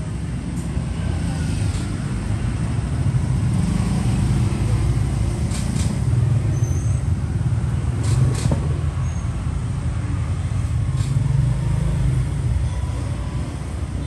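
Steady low rumble of road traffic, with a few sharp clicks, mostly in pairs, from about the middle on.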